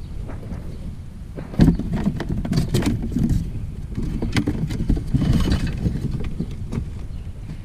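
Scrap metal being handled and pulled apart: a string of knocks, clinks and rattles, the loudest about a second and a half in, over a low rumble.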